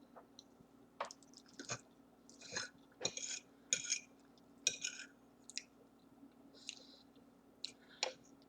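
Close-up chewing and wet mouth sounds of a person eating spaghetti: irregular smacks and clicks, with a cluster of louder ones in the middle.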